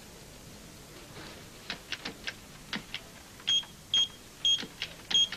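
Sharp key clicks, then from about halfway a run of short high electronic beeps about twice a second, with clicks between them, as from keys pressed on an electronic keypad.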